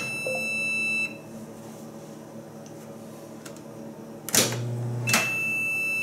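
Amana Radarange RR-6W microwave oven: a high electronic beep for about a second, then a click and a low hum for under a second as the oven runs for a split second on a zero-time setting. A click ends the hum, and a long high beep of about two seconds marks the end of the cycle.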